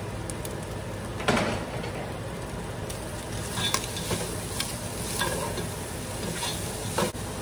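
Pork pieces and chopped onion sizzling in oil in a pot, with a spatula stirring and scraping against the pot several times, the loudest scrape about a second in.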